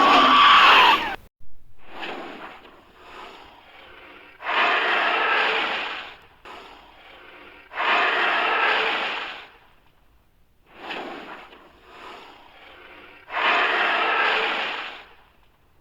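Creature sound effects made with a human voice: a loud pitched call that ends about a second in, then three long, harsh breathy snorts, each about a second and a half, with quieter breaths between them.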